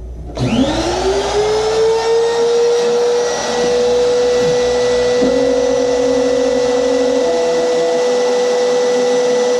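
Spindle motor of a homemade CNC router starting up: a whine that rises in pitch over about two seconds, then runs at a steady high whine.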